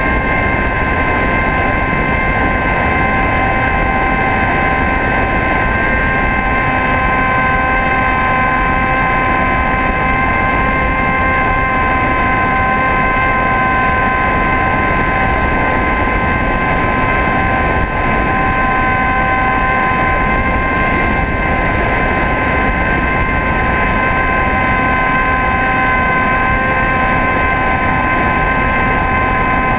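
HobbyKing Bixler RC plane's electric motor and pusher propeller running at a steady pitch, a constant whine, with heavy wind rush over the nose-mounted camera's microphone.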